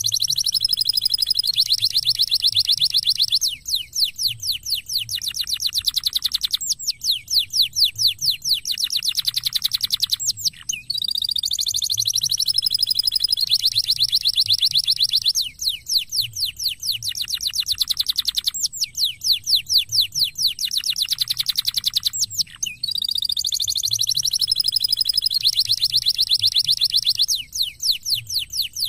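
Domestic canary singing a long, fast song of high rapid trills and rolling glides, the same phrase coming round about every 11 seconds. It is a canary lure song, played to get silent or reluctant canaries singing.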